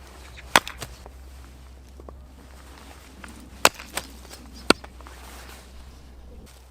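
Gränsfors axe chopping firewood: three sharp chops into wood, each followed by a lighter knock.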